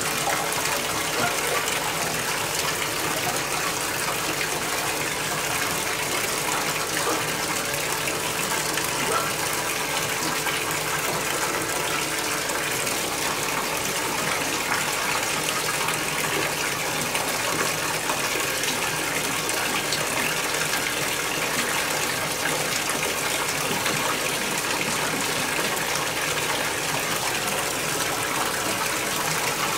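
Water running steadily into a bathtub.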